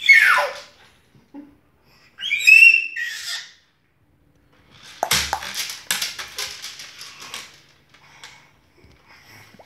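A baby's high-pitched squeals of delight: one falling squeal at the start and another about two seconds in. About five seconds in comes a fast run of knocks and taps lasting a couple of seconds.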